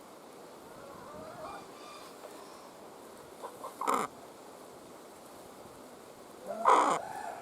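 Domestic hen calling, with two short, loud, harsh clucks: one about four seconds in and one near the end. Fainter small calls come before them.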